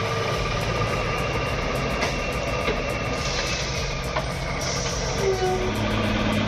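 An engine running steadily at a low, even pitch, with a few faint clicks.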